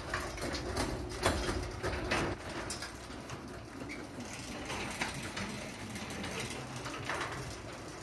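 Chamberlain MyQ garage door opener raising a tall sectional garage door on its first run after installation. The motor drones steadily while the door rolls up its tracks with scattered clicks and rattles.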